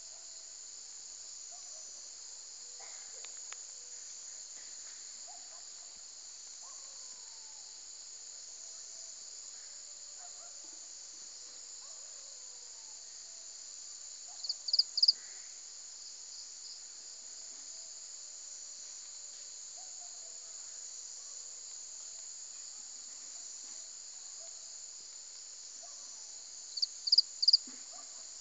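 Steady high-pitched insect chorus, with two short runs of three or four loud, sharp chirps, one about halfway through and one near the end.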